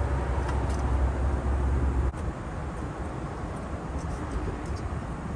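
A steady low mechanical rumble with a hiss above it, which cuts off suddenly about two seconds in and leaves a quieter steady background noise.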